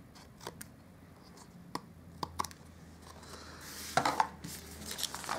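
Cardstock being trimmed by hand: scattered sharp cutting clicks, then a short rasping cut with a few more clicks about four seconds in.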